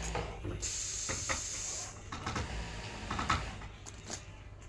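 Polyester sports jerseys being handled and shifted: a short steady hiss lasting about a second, then scattered rustles and soft knocks.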